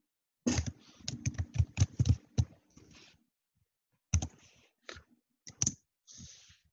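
Typing on a computer keyboard: a quick run of keystrokes lasting about two and a half seconds, then a pause and a few scattered keystrokes.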